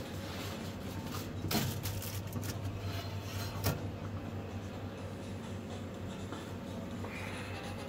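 Stainless countertop pizza oven's metal door handled, with two sharp metallic knocks about a second and a half apart. A steady low hum runs under them.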